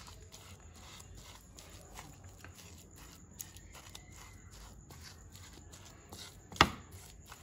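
A steel spoon scraping and tapping on a plate while mixing a spice marinade into fish pieces, with one sharp clink near the end.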